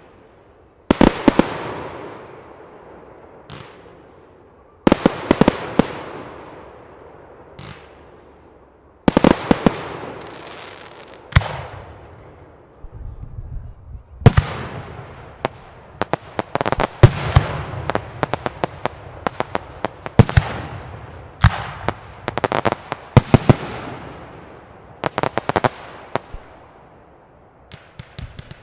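Aerial fireworks shells bursting with sharp bangs, each echoing away over several seconds. At first the bangs come singly, about every four seconds; then, about halfway through, they run together into a rapid barrage.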